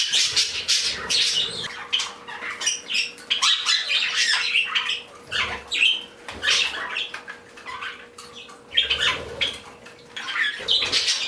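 Mixed flock of pet parakeets, budgies among them, chattering with constant overlapping chirps and squawks. A faint steady hum runs underneath.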